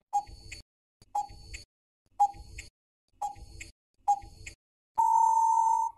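Countdown timer sound effect: five short ticks about a second apart, then a long steady beep that marks time up.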